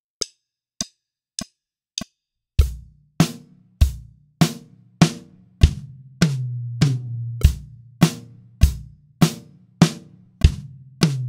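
Four clicks a beat apart at 100 beats per minute, then an acoustic drum kit comes in about two and a half seconds in. It plays a basic rock beat on bass drum, snare and hi-hat, in steady quarter-note time with the clicks, and works in short quarter-note fills of snare and bass drum.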